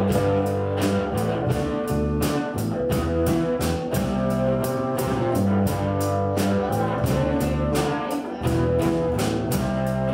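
Amateur rock band playing: electric guitar and drums with a steady beat.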